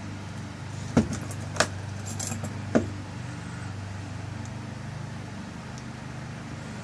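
Small sharp metal clicks, four of them in the first three seconds, as the tail piece is fitted and screwed back onto a rekeyed lock cylinder, over a steady low hum.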